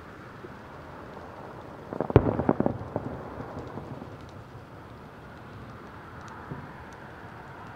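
Fireworks shell bursting, heard from afar: a sharp bang about two seconds in, followed by a rapid, ragged string of further reports over the next second and faint crackling fading out. A steady background hiss runs underneath.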